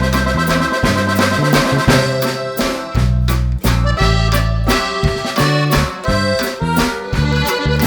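Upbeat background music with a steady beat, led by an accordion-like melody.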